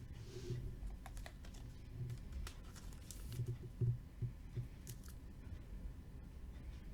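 Faint, irregular light clicks and taps with soft rustling, as trading cards and their packaging are handled on a table.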